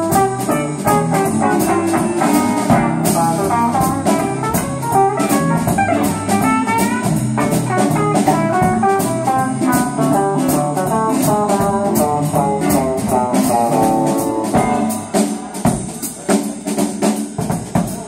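Small band playing live: fast electric guitar lines over a drum kit and low bass notes. About fifteen seconds in, the low end drops away and the drums come to the front.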